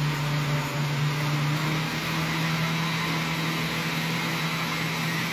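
Countertop blender running at a steady speed, its motor humming at an unchanging pitch, blending tangerine juice, oil and eggs until the mixture thickens.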